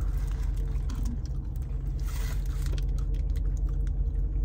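Steady low hum of a parked car running, heard inside the cabin. Over it come light clicks and paper rustles as a taco in its wrapper is bitten and chewed.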